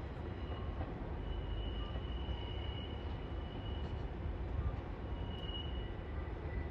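JR 185 series electric train moving slowly through the station points, its wheels squealing in a thin high tone: one long squeal, then a shorter one, over a steady low rumble.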